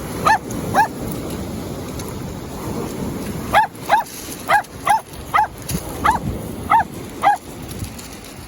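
Small dog, a Jack Russell terrier, barking: two sharp high barks at the start, then a quick run of eight more after a pause, over the wash of surf and wind.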